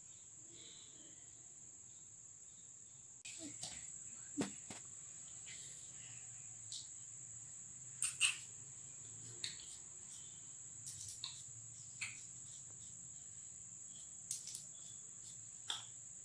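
A cricket trilling as one steady high-pitched note, over a faint low hum. From about three seconds in come scattered light taps and clicks as hands work a felt-tip marker on paper.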